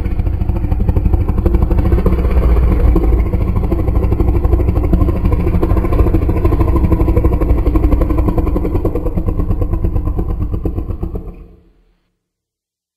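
Dragon sound effect: a long, loud, low rumbling growl with a rough, rapidly pulsing texture that holds steady, then fades out quickly near the end.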